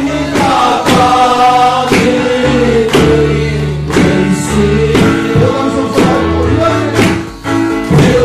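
A group of men singing a gospel worship song together, led on a microphone, to electric keyboard accompaniment with held bass notes and a steady beat of about one strong stroke a second. It starts suddenly.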